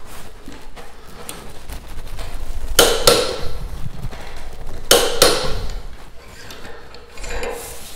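Torque wrench set to 80 foot-pounds clicking over at its set torque twice, each time a sharp double metallic click with a brief ring, as a rifle action is tightened onto its barrel; a fainter click follows near the end.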